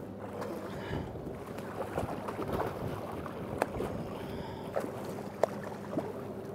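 Hooked brown trout thrashing and splashing at the surface against the side of a boat, with a few sharp splashes in the second half. Under it the boat's motor hums steadily at slow trolling speed, and water sloshes along the hull.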